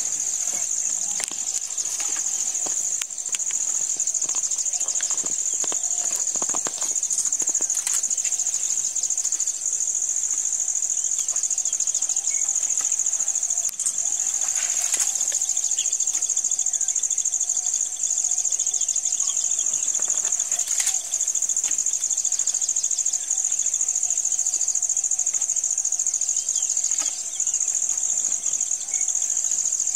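Dense insect chorus: a steady, high-pitched shrill drone that holds unbroken, with a few faint clicks now and then.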